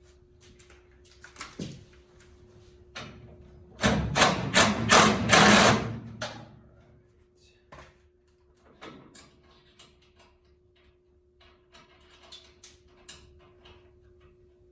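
A handheld power tool runs in one loud burst of about two seconds with a rapid rattling beat, about four seconds in. Scattered clinks and knocks of metal tools and parts come before and after it, over a faint steady hum.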